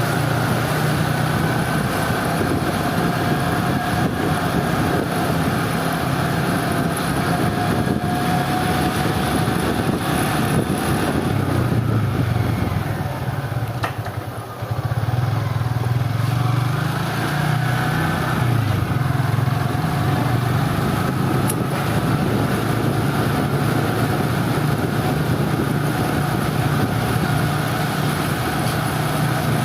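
A vehicle engine running steadily under way, with a strong low hum. It drops off briefly about halfway through, then picks up again.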